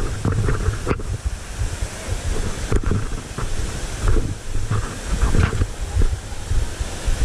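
Wind buffeting the microphone: irregular low rumbling gusts over a steady rushing hiss, with a few faint knocks.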